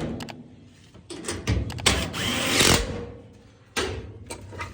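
Power drill driving a quarter-inch screw: one run of about a second near the middle, the motor pitch rising and then falling as the screw seats, followed by a short knock.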